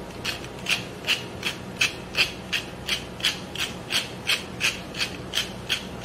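Hand-twisted pepper mill grinding pepper: a steady run of short grinding rasps, about three a second.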